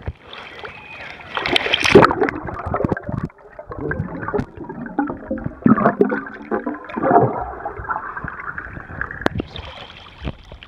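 Swimming-pool water sloshing and gurgling around a camera held in the water as it goes under the surface and comes back up, with surges of bubbling and splashing.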